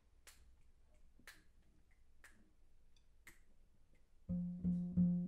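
Count-off for a jazz quartet: four faint, sharp clicks about a second apart, then a little over four seconds in the electric guitar and double bass come in together, striking a repeated chord about three times a second.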